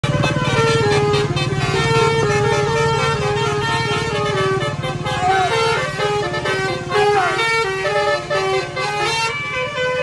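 Hino RN 280 bus's telolet horn, a basuri-style multi-trumpet horn, playing a quick stepping melody with the notes changing several times a second, over the bus engine's low steady hum.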